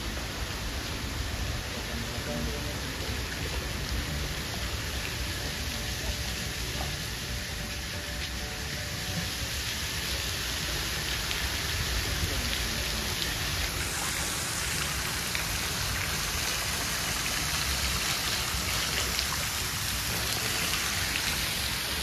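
Steady hiss of falling water and spray from a large waterfall, heard as an even rain-like wash. It turns brighter and slightly louder about two-thirds of the way through.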